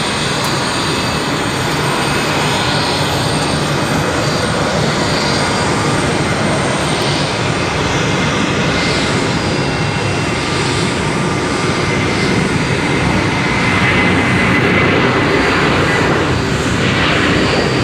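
Jet engines of an Airbus A330-200 at take-off thrust: a loud, steady rush of engine noise with a faint whine on top, growing a little louder in the second half.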